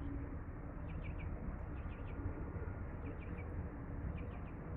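Small birds chirping: short, high chirps in groups of two or three, repeated about every second, over a steady rush of wind and bay waves.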